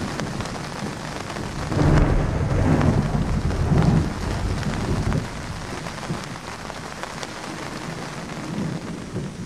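Thunder rolling over steady rain: a low rumble swells about two seconds in, stays loud for a few seconds, then dies away, while the rain's hiss carries on throughout.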